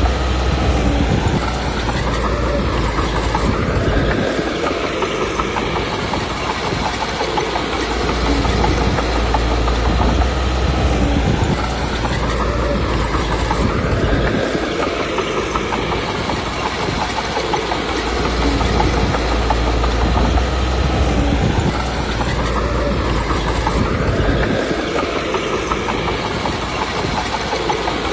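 Komatsu D21P bulldozer's diesel engine working hard, its pitch rising and falling in a repeating cycle about every ten seconds as the dozer pushes and backs off.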